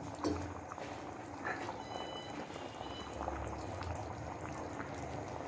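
Thick chana dal (split-chickpea lentil curry) bubbling at a boil in a frying pan, with small scattered pops.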